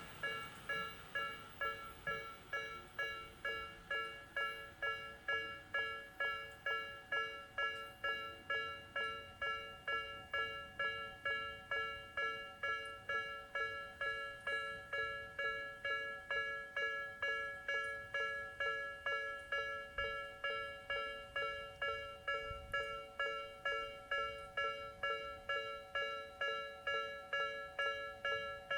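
Japanese level-crossing electronic alarm, Tobu 'sound B' (Nikko type), ringing steadily: a decaying electronic ding repeated a little over twice a second.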